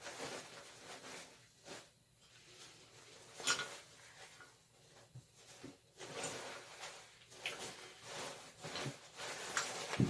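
Faint handling sounds of a rusty antique gate lock: a string of short rubs and scrapes with a few small clicks, the loudest about a third of the way in.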